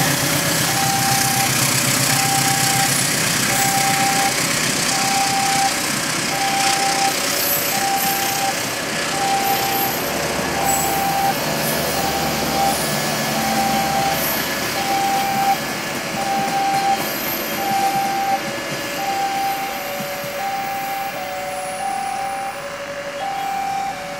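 Passenger train carriages running past on the rails, with a level-crossing warning signal beeping steadily about once a second over the train noise. Near the end a second, lower beep alternates with it as the train sound eases off.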